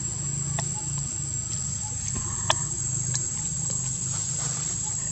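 Outdoor forest ambience: a steady high-pitched insect drone over a low steady hum, broken by a few sharp clicks of dry leaves and twigs as the baby monkeys move on the leaf litter, the loudest about two and a half seconds in.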